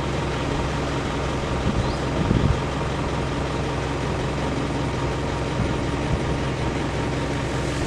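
An engine running steadily off-screen: a low, even drone with a faint steady higher tone over it.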